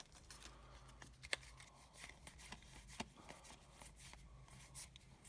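Faint handling of Pokémon trading cards, cards sliding and flicking against each other as they are flipped through, with two sharper clicks about a second in and about three seconds in.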